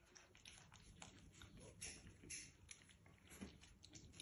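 Puppies eating kibble from a feeding bowl: faint, irregular clicking and crunching, several small clicks a second.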